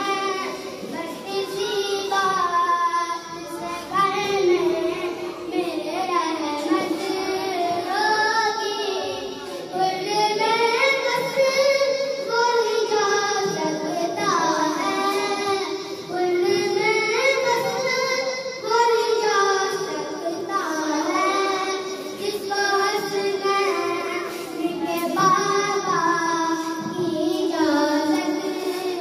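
A boy singing a naat, an Urdu devotional poem, solo into a microphone in long, drawn-out melodic phrases. His voice is amplified through a portable loudspeaker.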